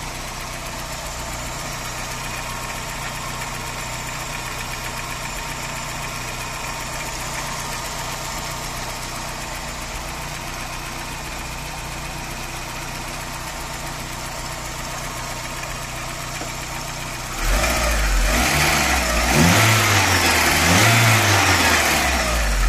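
VW Saveiro engine idling steadily, the pulley noise it has been making kept quiet for now by water on the belt and pulley. Near the end it gets louder, its pitch rising and falling twice.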